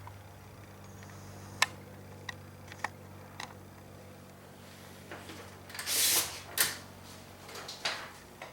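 Handling noises around a 1966 Royal Safari portable typewriter: a few separate sharp clicks, then louder scraping or rustling about six seconds in and one more click near the end.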